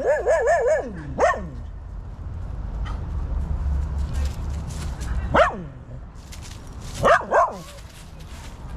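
A dog barking in short, high yelps. Several come at the start with a wavering whine between them, then a single bark about five seconds in and two quick barks about seven seconds in.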